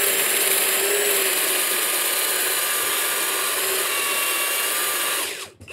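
Electric belt sander running steadily while sanding the curved cut edge of a deck board, then switched off and winding down about five seconds in.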